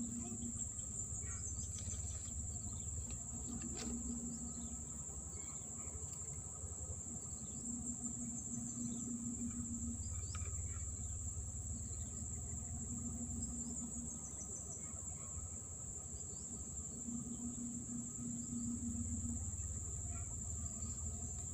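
Steady, high-pitched chorus of insects, with a lower pulsing buzz that comes in bouts of about a second every few seconds.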